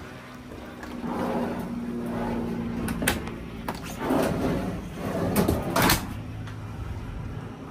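A galley cabinet drawer being slid open and shut, with several sharp clicks and knocks; the loudest knock comes about six seconds in.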